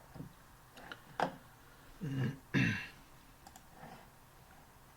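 A man clearing his throat twice in quick succession about two seconds in, with a few faint clicks from a computer mouse.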